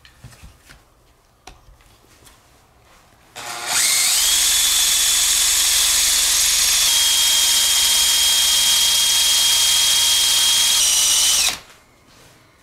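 Makita cordless drill spinning a wooden spindle hard against a wooden hearth board to build a friction-fire ember. After a few faint handling knocks, the drill spins up with a rising whine about three and a half seconds in, runs steadily at full speed for about eight seconds, then stops suddenly.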